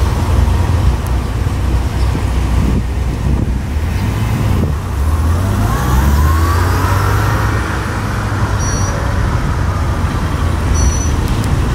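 Cars, including classic cars, driving slowly past with their engines running in a steady low rumble. A faint rising tone comes in about halfway through, and there are a couple of brief high chirps near the end.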